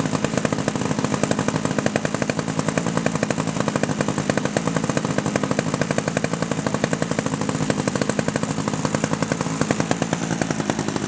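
Hirobo Huey gas-powered RC helicopter hovering: its small two-stroke gasoline engine runs steadily under the rapid, even chop of the rotor blades.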